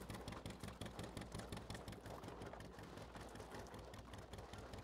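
Narrowboat's diesel engine chugging steadily with a quick, even beat, heard faintly.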